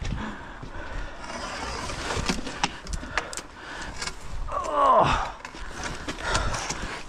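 Scattered clinks, knocks and scrapes of a heavy rusty steel scaffold pole with a magnet stuck to it being handled and set down on a paved path. About five seconds in, a short sound falls steeply in pitch and is the loudest moment.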